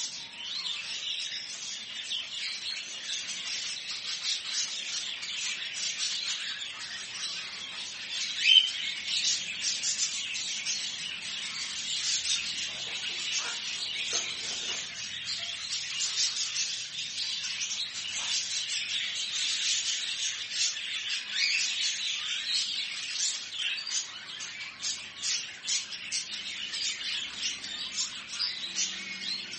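Many caged birds in a pet shop chirping, tweeting and squawking over one another in a dense, continuous chatter, with one louder call about eight seconds in.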